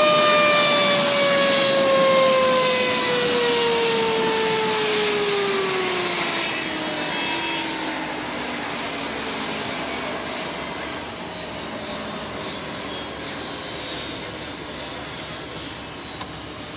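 Crashed helicopter's turbine engine spooling down: a whine of several pitches that slowly falls and fades away.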